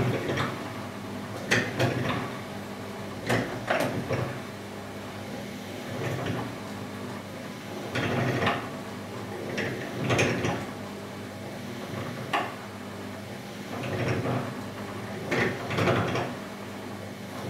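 Motor of a bench drill-driven valve lapping tool running steadily, with a short grinding rasp about every one to two seconds, about eight times, as the spinning lapping rod is pressed by lever onto the valve cap coated with lapping paste and lifted again.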